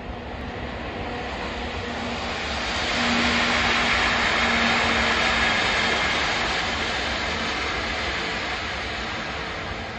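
JR electric locomotive running light past on the rails, a broad rushing rail-and-wheel noise with a faint low hum. It swells, is loudest from about three seconds in, then fades away.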